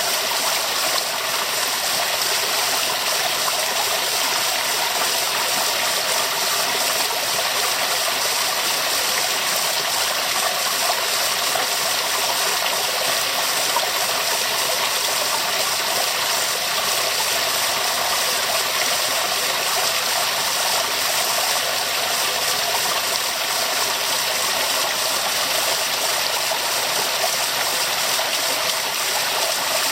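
Waterfall: water rushing steadily, a bright hiss with little bass.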